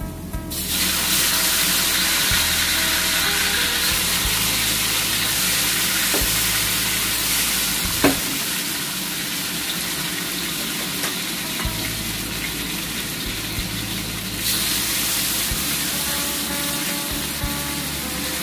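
Whole marinated quail going into hot garlic oil in a steel wok and sizzling steadily as they pan-fry, the sizzle starting about half a second in. There is one sharp knock about eight seconds in, and the sizzle swells a few seconds before the end.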